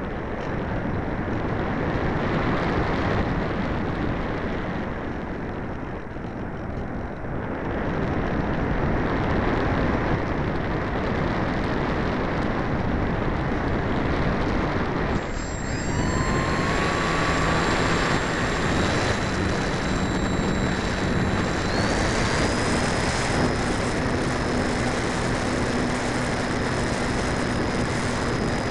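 Airflow rushing over an Easy Glider RC model aeroplane, heard through its onboard camera's microphone. About halfway through, a whine with several steady tones comes in, first rising in pitch and then holding, as the electric motor runs up for a climb.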